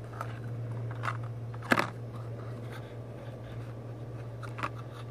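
Handling noises: a few sharp clicks and crinkles, the loudest just under two seconds in, over a steady low hum.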